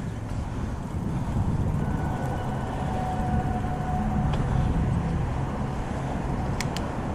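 Wind rushing over the microphone of a moving mountain bike, mixed with the noise of its tyres rolling on a concrete sidewalk. Two sharp clicks come near the end.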